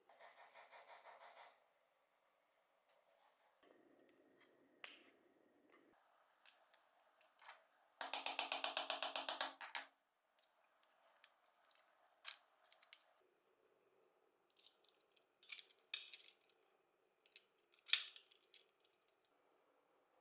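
Small hard parts being handled: scattered clicks and taps, a short pulsing buzz at the start, and a louder rapid rattle of even pulses lasting about two seconds near the middle.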